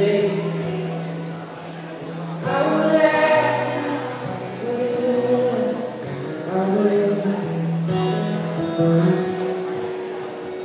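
Live song: a man singing phrases with long held notes, accompanied by acoustic guitar.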